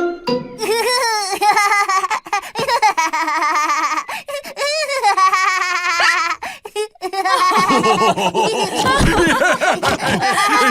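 Cartoon pig family laughing together, several voices at once.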